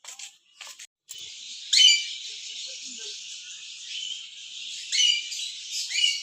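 Birds chattering continuously, with louder, sharper calls about two seconds in and twice near the end.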